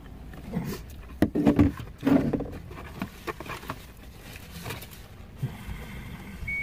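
Scattered light clicks and rustling from people moving about and handling things inside a van's cabin, with two short low hums about one and a half and two seconds in.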